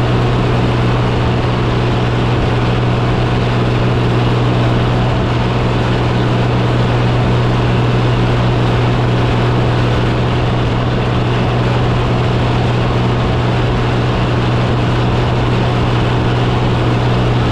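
Oliver 1555 tractor engine running at a steady, unchanging pitch as the tractor drives across the field.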